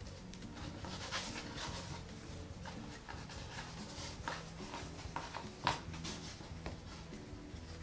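Hands braiding soft yeast dough on a floured board: soft rubbing and light taps, with one sharper knock about two-thirds of the way through, over quiet background music.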